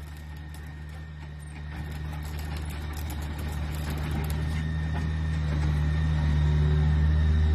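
Doosan 80 excavator's diesel engine running steadily with a low even hum, growing gradually louder.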